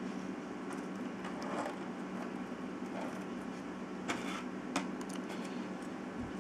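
Light clicks and rustles of 3D-printed wireframe puzzle pieces being handled and fitted together, with two sharp clicks about four and five seconds in, over a steady low hum.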